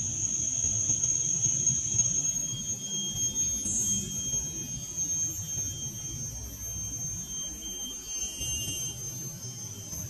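A steady high-pitched whine held throughout over a low background rumble.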